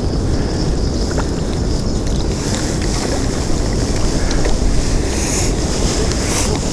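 Wind buffeting the microphone: a steady low rumbling rush with no other clear event.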